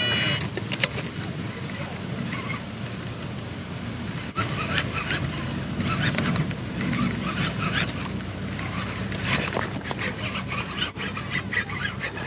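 Baitcasting reel being cranked on a fast retrieve, with irregular clicks and knocks over a steady low rumble.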